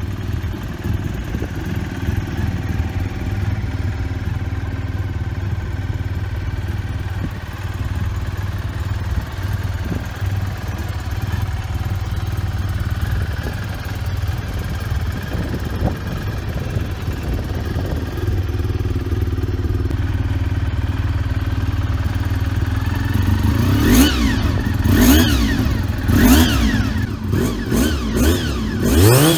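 Honda RVF400R (NC35) 400 cc V4 engine idling steadily, then revved in a run of about five quick throttle blips, roughly one a second, near the end, each rising and falling in pitch.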